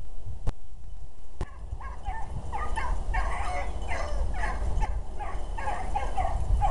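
Pack of beagles baying on a rabbit's scent trail, many short, overlapping bays several a second, starting about two seconds in. A low rumble runs underneath, with two sharp clicks near the start.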